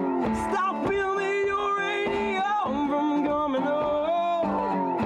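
A man singing to his own guitar, which he plays lap-style, laid flat across his knees, plucking notes under the sung melody.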